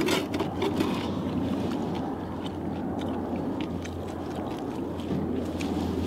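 Close-up eating: slurping rice porridge from a bowl and biting and chewing pan-fried dumplings, with many small clicks, over a steady low rumble.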